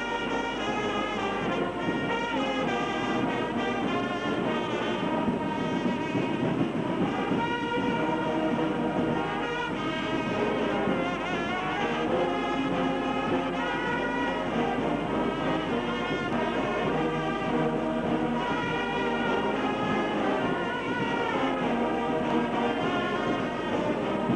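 Brass ensemble playing music, several instruments holding notes together in a steady, continuous flow.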